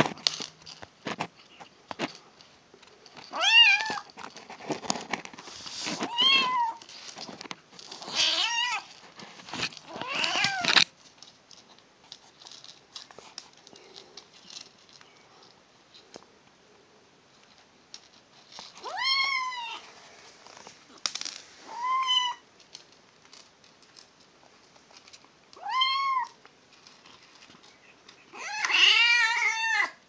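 A kitten making short, high mewing cries while eating, about eight of them a second or two long, each rising and falling in pitch, spaced a few seconds apart with a quieter stretch in the middle. Faint clicks of dry kibble being chewed fill the gaps.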